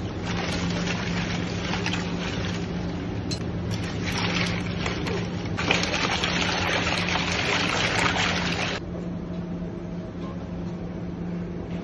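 Water splashing and sloshing in a stainless steel pan of ice water as a mass of blanched greens is plunged in and swirled around. The splashing is loudest from about six seconds in and stops abruptly near nine seconds, over a steady low hum.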